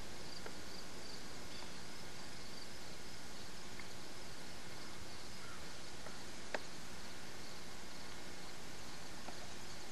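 Insects chirping in a steady high-pitched rhythm of about three pulses a second over a constant outdoor hiss, with a few sharp clicks, the loudest about six and a half seconds in.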